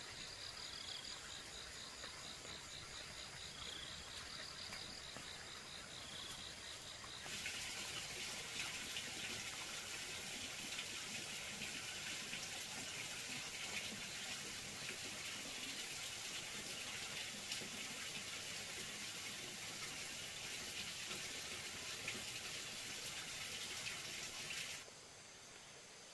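Insects chirring steadily with a repeating high chirp. About a quarter of the way in, a louder, even rush of running water takes over, then cuts off suddenly near the end.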